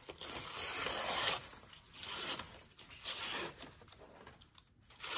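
Spyderco Salt 2 knife blade slicing through thin tissue packing paper to test its factory edge, a crisp ripping rasp. One long cut lasting about a second and a half, then three short strokes.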